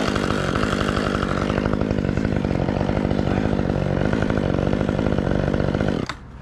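Chainsaw running steadily, then cutting off suddenly near the end.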